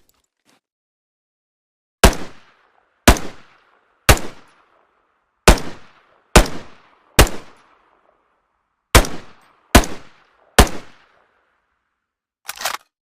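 Browning Automatic Rifle (BAR) gunshot sound effect: nine single shots about a second apart, each trailing off in a short echo, then two quick shots close together near the end.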